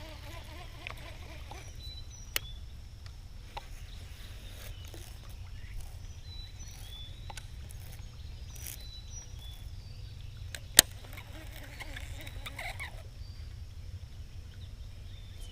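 Birds calling with many short, high chirps over a steady low rumble, broken by two sharp clicks about two and a half and eleven seconds in, the second one the loudest.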